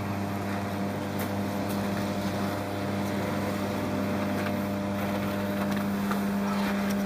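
A steady low hum over a constant hiss, unchanging throughout, with a few faint ticks.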